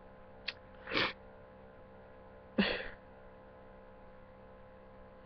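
A person crying, sniffling sharply twice, about a second in and again at about two and a half seconds, with a small click just before the first sniff. A steady low electrical hum runs underneath.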